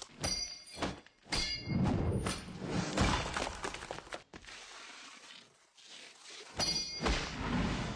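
Sound effects for an animated logo intro: several sudden crashing hits with a bright ringing tail, a dense swell of noise loudest in the first half, then another ringing hit near the end that fades away.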